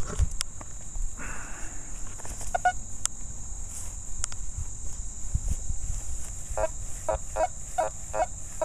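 A grass-and-soil plug is pressed back into its hole with a short rustle. Near the end, a Nokta Makro FORS Core metal detector starts beeping in quick short pulses, about three a second, as its coil sweeps over a rusty nail lying on a buried dime; this is the iron signal.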